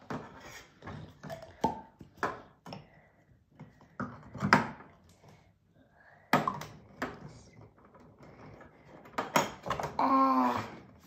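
Scattered knocks and clicks of drink containers being handled and set down while homemade drinks are mixed together, with a short vocal sound near the end.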